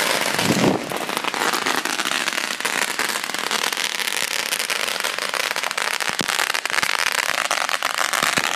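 Many firecrackers and fireworks going off around a neighborhood, a dense continuous crackle of rapid pops.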